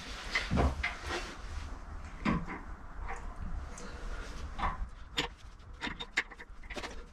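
Clunks, taps and scrapes of a heavy cast-iron Bridgeport milling-head casting being wrestled by hand onto its mounting bolts on the ram, with clothes rustling. The knocks come more often in the second half.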